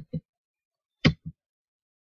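Computer mouse clicked twice, about a second apart, each a sharp click followed quickly by a softer one.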